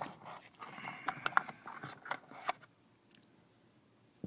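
Small screws and plastic door trim being handled: a run of light clicks and scraping during the first two and a half seconds as a screw is fitted to its hole, then a single click near the end.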